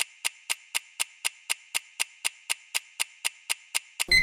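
Countdown-timer ticking sound effect: even, clock-like ticks, about four a second, over a faint steady hiss. A ringing tone starts just at the end as the countdown runs out.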